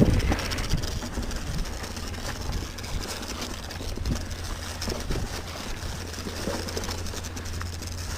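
Riding a Specialized Stumpjumper Alloy mountain bike on a dirt ranch road: a steady low wind rumble on the camera microphone and a hiss of rolling tyres, with scattered clicks and rattles from the bike.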